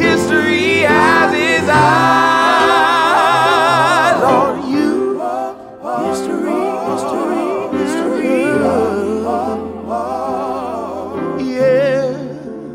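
Music: a song with a solo voice singing long, wavering notes over sustained keyboard chords.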